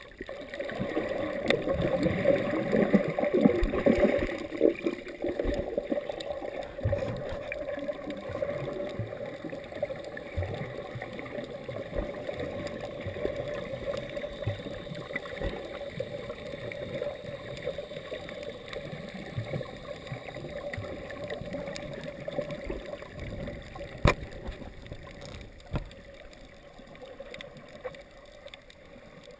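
Muffled water sloshing and gurgling picked up by a camera moving underwater, loudest for the first five seconds or so, with a single sharp click about 24 seconds in.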